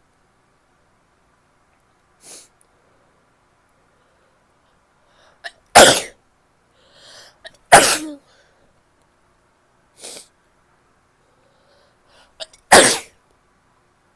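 A woman sneezing three times, wet sneezes each loud and short, about six, eight and thirteen seconds in, with fainter short sounds in between.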